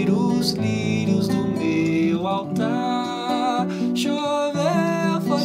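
Nylon-string classical guitar, strummed and picked, playing a lively song.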